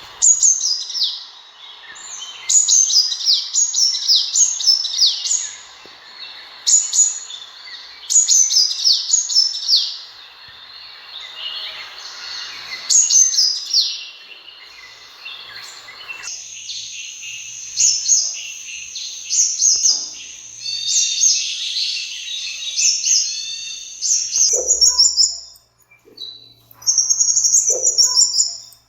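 Sunbirds calling: bursts of high, thin, quickly falling chirps repeated every second or two. About halfway through the background hiss drops away and the calls turn into quicker, higher twittering.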